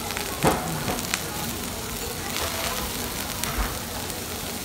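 Steak and bean sprouts sizzling on a hot cast-iron sizzle plate as a steady hiss, with one short, loud sound about half a second in.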